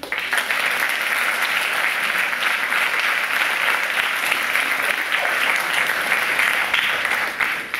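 Audience applauding, starting at once and holding steady, then dying away near the end.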